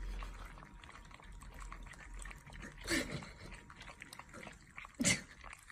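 Golden retriever puppies tugging at a toy in their mouths: faint mouthing and small clicks, with two short puppy vocalisations, one falling in pitch about three seconds in and a louder, sharper one about five seconds in.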